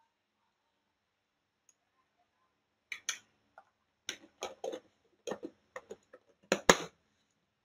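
Sharp clicks and knocks of a kitchen knife against a wooden cutting board and a plastic tub, in irregular clusters starting about three seconds in, the loudest near the end.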